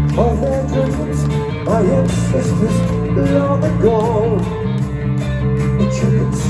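Rock band playing live: electric bass and guitars under a wavering melody line, over held low notes.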